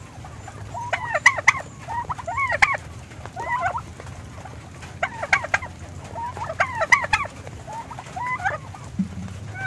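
Poultry (turkeys and chickens) calling in short repeated calls, about six in all, spaced a second or so apart, over the steady hiss of heavy rain.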